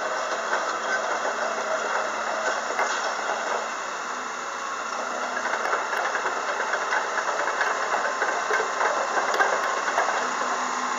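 Komatsu PC200-6 crawler excavator's diesel engine running steadily. Irregular rattling and clanking sound over it, thicker in the second half.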